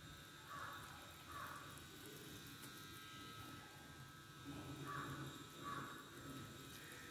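Faint sounds of a hand mixing flour into a wet dough in a glass bowl, over a steady electrical hum. Four short higher-pitched sounds come in two pairs, one pair about half a second in and another about five seconds in.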